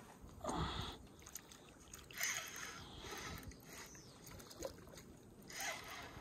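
Water splashing in three short bursts as a hooked fish thrashes at the surface beside a small boat.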